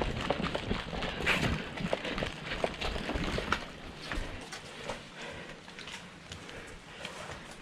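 Quick footsteps over hard ground, an irregular run of sharp steps that grows quieter after about four seconds.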